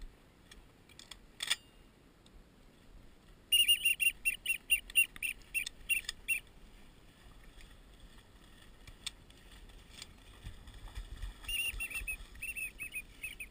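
Duck whistle call blown in quick runs of high, chirping whistled notes, once for about three seconds and again more softly near the end, calling passing ducks in to the decoys. A short knock comes about a second and a half in.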